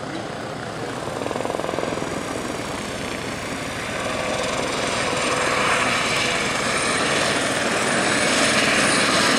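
Eurocopter EC130 helicopter flying low past, its rotor and turbine noise growing louder from about four seconds in.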